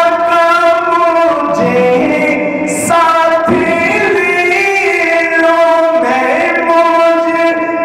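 Man singing a naat, an Urdu devotional song, in long drawn-out melodic notes with few clear words, the held notes sliding between pitches.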